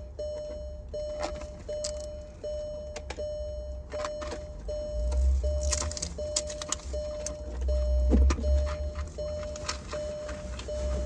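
A car's warning chime repeating steadily, about two tones a second, over low rumble with scattered clicks and clatter of items being handled inside the car.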